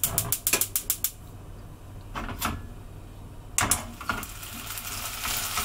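Stove burner igniter clicking rapidly as the burner is turned to high, stopping about a second in, followed by two single knocks. Toward the end a faint sizzle of chicken breast starting to fry in olive oil in the frying pan begins to rise.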